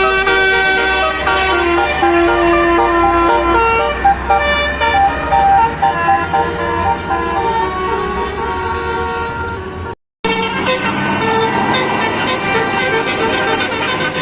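Basuri telolet musical horn on a bus playing a melody of several horn notes over the low running of the bus engine. It breaks off about ten seconds in, and another horn tune follows.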